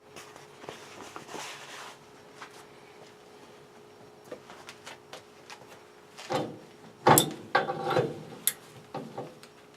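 Wrench and metal pipe knocking and scraping as a freshly loosened fitting on an old boiler pipe is worked off. Light handling noise at first, then a cluster of sharp clanks and scrapes from about six seconds in.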